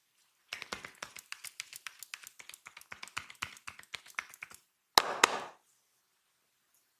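Massage tapping: hands striking the body in a rapid, even run of taps, about six a second for four seconds. Then two loud sharp slaps come close together.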